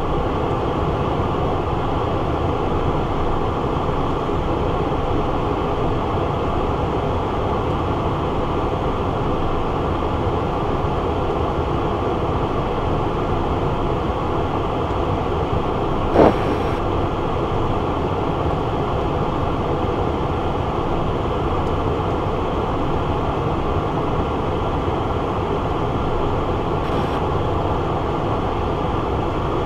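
Steady cockpit noise of a Cessna Citation Encore jet on final approach with landing flaps set: the even rush of airflow and its twin Pratt & Whitney PW535 turbofans. A brief short sound cuts through once, a little past halfway.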